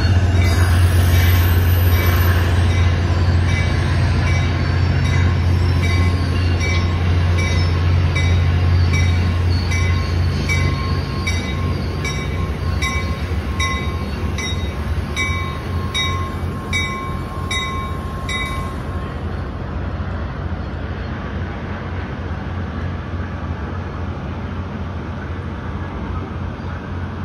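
Capitol Corridor passenger train pulling into a station, cab car first, with a low rumble that slowly fades as it slows to a stop. Over the rumble, its bell rings steadily a little under twice a second and stops about nineteen seconds in.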